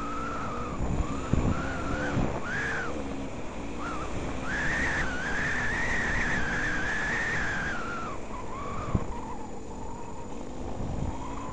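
Yamaha DT200R single-cylinder two-stroke engine revving under way, its note rising and falling with the throttle, held high for a few seconds about halfway through and then easing back. Wind buffets the microphone.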